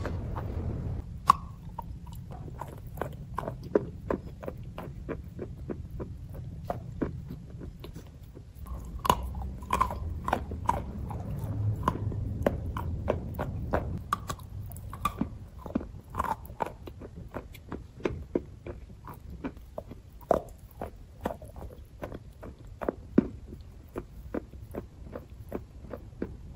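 Chalk being bitten and chewed close to the microphone: many sharp, crisp crunches at uneven intervals.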